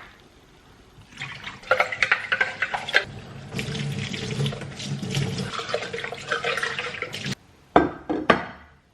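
Water running from a tap into a sink, with scattered light clinks. It cuts off suddenly about seven seconds in and is followed by two short knocks.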